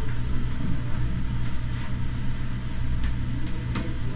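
Steady low room hum with a few faint clicks in the second half, like keys or a mouse on a computer.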